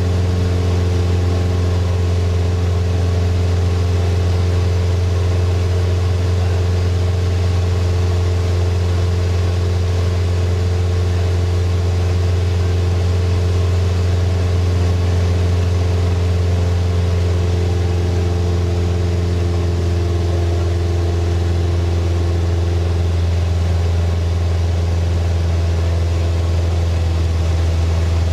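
Single-engine floatplane's piston engine and propeller running steadily in flight, a deep, even drone heard from inside the cockpit.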